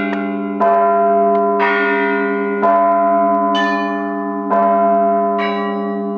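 Russian Orthodox church bells being rung: a heavy stroke about every two seconds, with smaller, higher bells struck in between. The low bells keep humming underneath.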